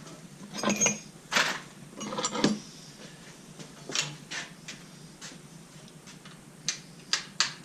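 Metal hand tools and engine parts clinking and knocking, with a series of short, separate clacks spread over several seconds, some ringing briefly, as sockets and wrenches are handled during an engine teardown.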